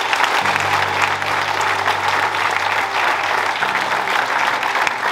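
An audience applauding: many people clapping at once in a steady, dense patter.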